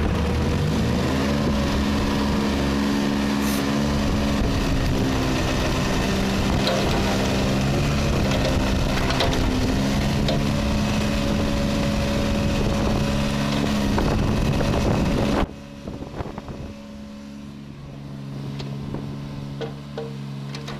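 Bobcat 120 mini excavator's small engine running at high revs, its pitch rising in the first second and wavering as the boom, arm and bucket are worked and the machine slews. About three quarters of the way through it drops suddenly to a much quieter, steady idle.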